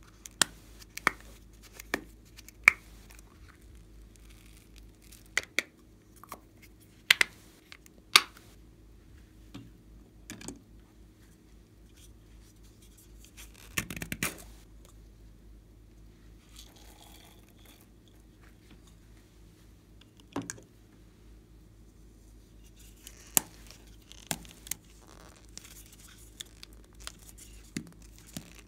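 Small plastic cosmetic-style containers being handled and opened by hand: a string of sharp plastic clicks and snaps, with a longer squeezing, crackling noise about fourteen seconds in as a pink plastic bottle-shaped case is squeezed. A steady low hum runs underneath.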